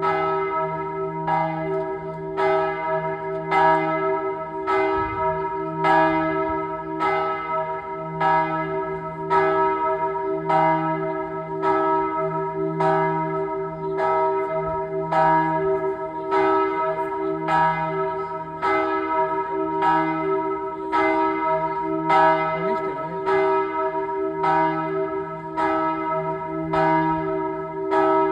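Several church bells ringing together in a steady peal: a regular run of strikes, more than one a second, over a layered, sustained ringing hum.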